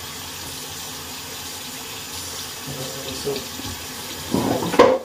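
Bathroom tap running steadily into a sink. Near the end comes a short, loud clatter, which is soap containers being dropped.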